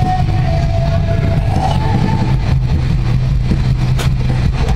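Steady low rumble of a car on the move, engine and road noise. A held tone rises slightly over the first two seconds and stops, and there is a single click about four seconds in.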